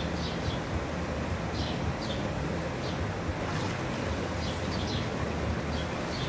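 Hot tub jets churning the water with a steady rushing and bubbling. Short high chirps come through it every second or so.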